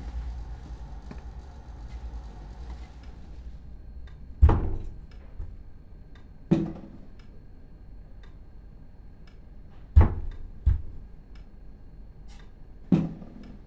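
Five heavy thuds on a wooden door, irregularly spaced, each with a deep boom, two of them close together about ten seconds in.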